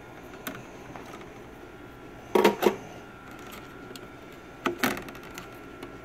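Sharp plastic clicks and knocks as memory modules are unlatched and pulled from the early 2008 Mac Pro's memory riser card: a loud pair about two and a half seconds in and another pair near five seconds. The modules are DDR2 FB-DIMMs with metal heat spreaders.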